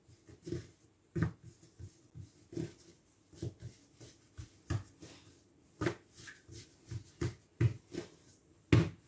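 Hands pressing and patting a ball of soft strudel dough flat on a floured worktop: a series of soft, irregular thumps, about two a second.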